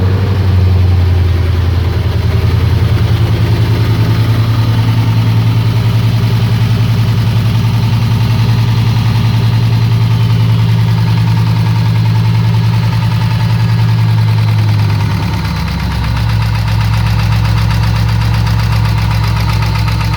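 Chevrolet Camaro's LS1 5.7-litre V8 idling just after start-up, with a regular knock in its running. The idle steps down slightly about fifteen seconds in.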